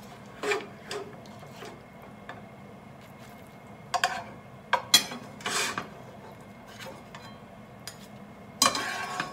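Plastic spatula scraping and knocking against a frying pan while glazed fried tofu cubes are scooped out of the sauce: a handful of short scrapes and clacks, with a longer scrape near the end.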